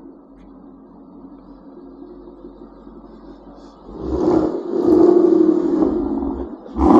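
Ford Mustang GT's 5.0 Coyote V8 through a Corsa Xtreme cat-back exhaust, idling steadily, then revved about four seconds in and held up for a couple of seconds, with a sharp rev blip near the end.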